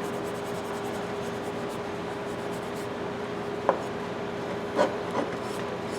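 Light rubbing of 0000 steel wool over the metal of a pipe wrench, under a steady hum, with a few small knocks of the tool being handled near the end.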